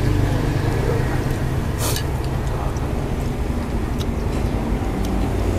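Steady low rumble of road traffic, with a short hissing slurp of phở noodles about two seconds in and a few faint clicks of chopsticks and bowls.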